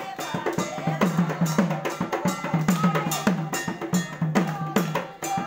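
Dhol, a two-headed barrel drum, beaten in a fast, steady dhamail dance rhythm of about four strokes a second, each stroke a low boom that drops slightly in pitch.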